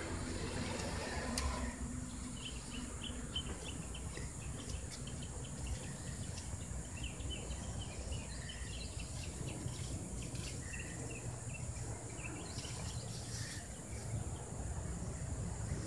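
Faint outdoor ambience: a steady high-pitched insect drone, with a scattering of small quick chirps through the middle and a low rumble underneath.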